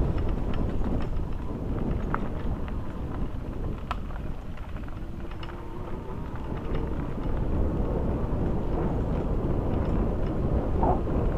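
Wind rumbling on the microphone during a bicycle ride, a steady low noise with scattered small clicks and rattles.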